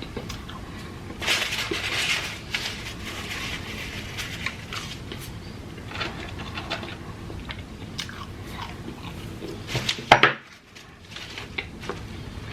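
Close-miked chewing and crunching of food, with a dense run of crunches early on and scattered smaller crunches and clicks after it. A loud sharp sound comes about ten seconds in.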